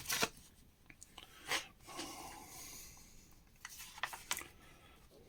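Faint rustling of magazine paper pages being handled and turned, with a few soft clicks and ticks.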